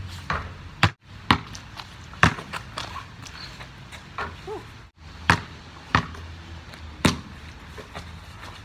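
A basketball thudding off the hoop's backboard and rim and bouncing on the driveway: about six sharp, separate thuds, irregularly spaced a second or so apart.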